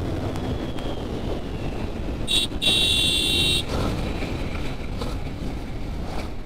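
Wind and engine rumble of a motorcycle being ridden, with a vehicle horn giving a short beep about two seconds in, then a held toot of about a second.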